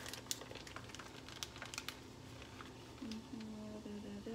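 Plastic bag of shredded cheese crinkling as a hand reaches in and pulls out cheese to sprinkle. About three seconds in, a woman starts humming a tune.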